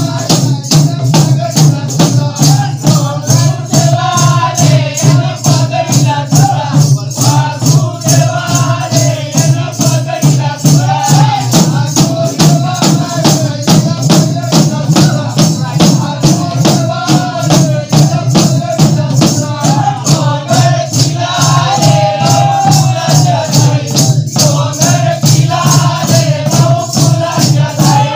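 Adivasi dhaka drums played in a fast, steady beat, with a man singing a wavering melody over the drumming.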